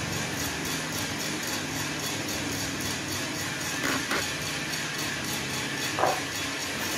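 Small drum coffee roaster running early in the drying phase: a steady motor and fan hum with the beans tumbling in a rapid, even rattle. Two sharp metal clinks come about four and six seconds in.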